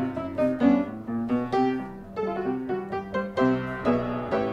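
Background piano music: a melody of single notes and chords played at an even pace.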